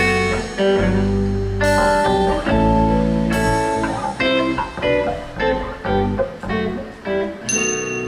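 Guitar playing an instrumental break between sung verses: struck chords, then quicker picked notes, ending on a held, ringing chord near the end, with bass underneath.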